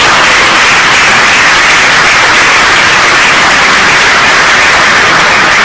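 Loud, steady audience applause, many hands clapping at once.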